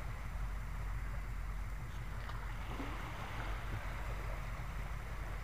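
Steady beach ambience: a low rumble with a soft hiss, even throughout with no distinct events.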